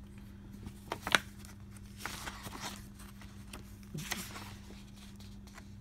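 Paper rustling with a few light clicks as rule book pages are turned, the sharpest click about a second in. A steady low hum runs underneath.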